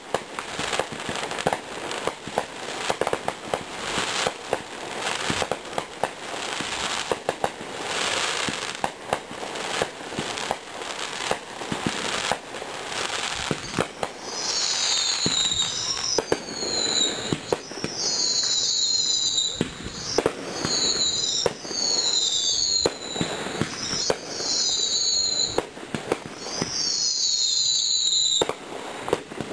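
Aerial fireworks going off: a rapid run of bangs and crackling bursts, then from about halfway a string of high whistles gliding up and down, roughly one a second, among the pops.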